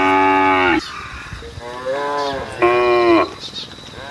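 Cattle mooing: three calls, a loud one at the start, a shorter, fainter one about two seconds in, and another loud one near three seconds, each dropping in pitch as it ends.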